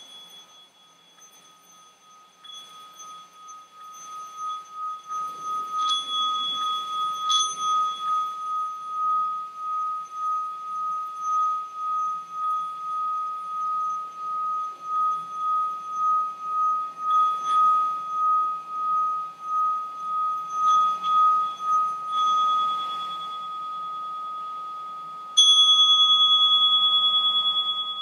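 Small hand-held singing bowl rubbed around its rim with a mallet, building to a steady ringing tone that pulses as the mallet circles. Near the end the bowl is struck once and rings out louder, decaying.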